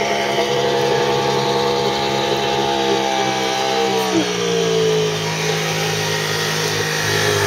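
ATV engine held at high, steady revs while the quad is driven half-submerged through deep water, the revs sagging a little midway, over the rush of churned water.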